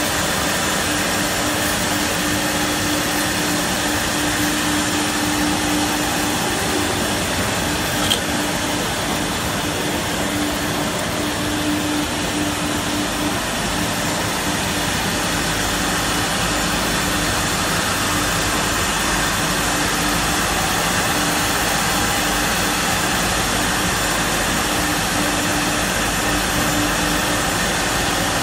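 WoodMaster WM-4CNC mortising machine running steadily as it routes mortise slots into four wooden boards: a constant machine noise with a steady hum that comes and goes. One sharp click about eight seconds in.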